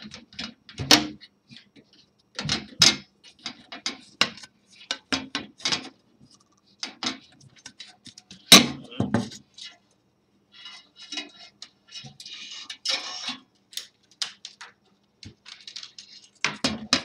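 Scattered knocks and metallic clinks as a metal 3D-printer heat bed plate is handled and set against the printer's metal frame, with a few seconds of scraping past the middle.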